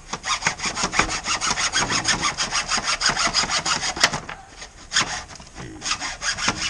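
Hand hacksaw cutting through 3-inch PVC pipe in quick back-and-forth strokes, about three or four a second, with a short break about four seconds in before sawing resumes.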